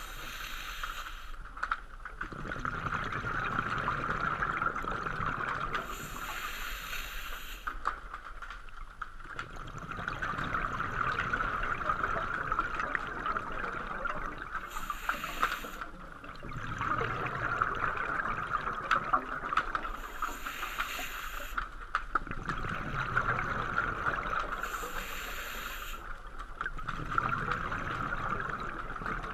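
Scuba diver breathing through a regulator underwater: a short hiss on each inhale, about five breaths in all, with the bubbling rumble of exhaled air between them, over a steady high-pitched hum.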